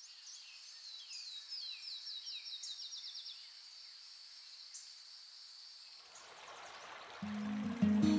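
Forest ambience: a steady high insect buzz with a songbird singing a quick run of falling chirps. About six seconds in, the rushing hiss of a river comes up, and background music with a bass line starts near the end.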